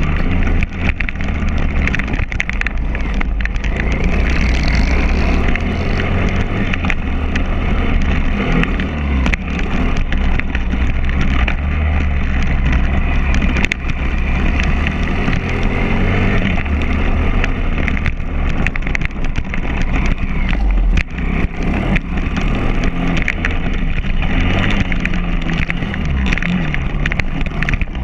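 A pit bike's small single-cylinder four-stroke engine runs hard as the bike is ridden around a dirt track, its revs rising and falling with the throttle. Occasional knocks come through as the bike goes over bumps.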